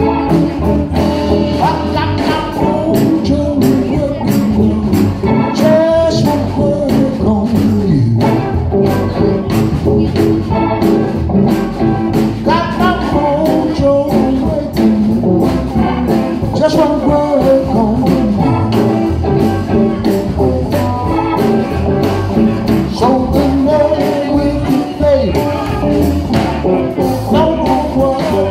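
Live blues band playing: electric guitars and drums, with a man singing into the microphone.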